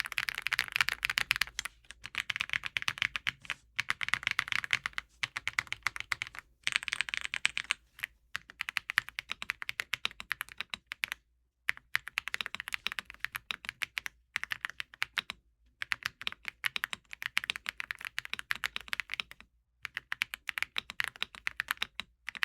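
Typing on a Redragon K745 Pro mechanical keyboard with its silicone dampening layer removed, as a sound test of the bare case. The keys clack in quick runs of a second or two, broken by short pauses.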